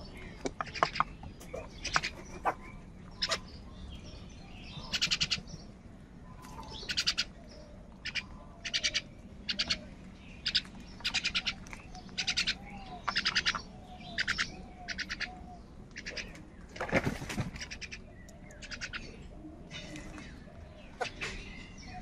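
House crows cawing over and over, harsh short caws singly and in quick runs of two or three, roughly one every second.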